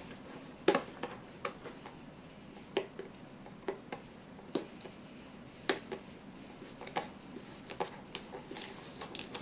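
Hands handling and picking at a taped product box: irregular sharp clicks and taps roughly once a second, with a short scrape near the end.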